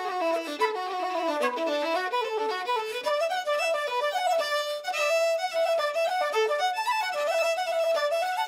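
Fiddle playing a tune in a quick run of bowed notes.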